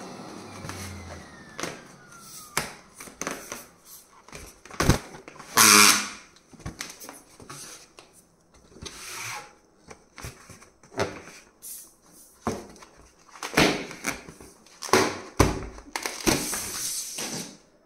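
Long latex twisting balloon being bent and squeezed in the hands: a string of short, irregular rubbery squeaks and rubs, the loudest about six seconds in. At the start, the steady noise of an electric balloon pump fades away.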